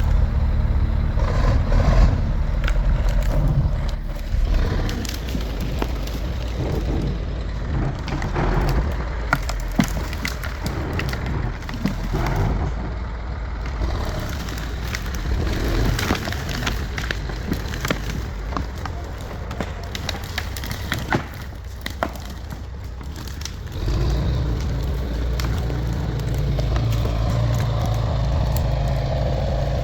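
Heavy engine-driven machinery working, with a low rumble and many irregular knocks and clatters. About 24 seconds in, a steadier, louder engine drone takes over.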